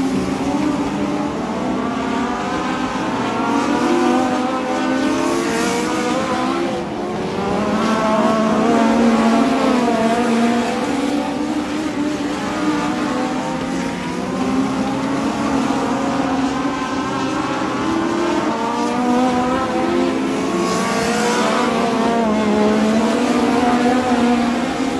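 A pack of small vintage-bodied race cars lapping a dirt oval: several high-revving engines at once, their pitch rising and falling as the drivers throttle through the turns. The sound surges twice as the cars pass close by.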